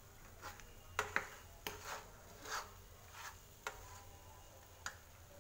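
Spatula scraping and knocking against a frying pan while stirring a dry fry of boiled egg and chana dal: about eight short, uneven scrapes and clicks.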